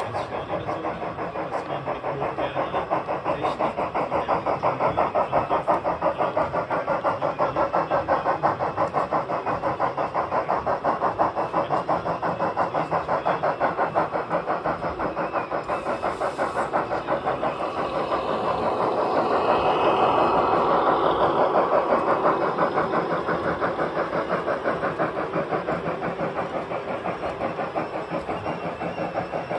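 Sound decoder of a KM1 model of the DB class 50.40 Franco-Crosti steam locomotive playing steady, rapid steam chuffing through its onboard speaker as the model runs. It gets louder a little past halfway through, then eases off again.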